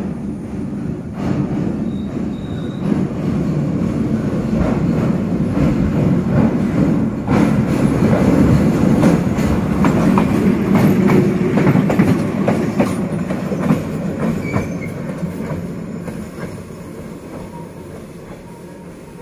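D12E diesel locomotives passing close by: engine running and wheels clacking over the rail joints, growing louder to a peak midway and then fading as they pull away.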